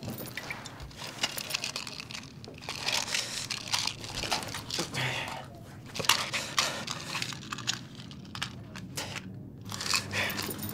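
Rustling and crinkling handling noises with scattered sharp clicks and knocks, uneven and stop-start.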